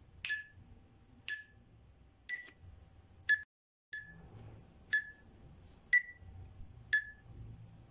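Electronic metronome ticking at about one beat a second (around 60 beats per minute), each tick a short, sharp, high beep. The sound cuts out briefly a little past three seconds in, then the ticking carries on at the same pace.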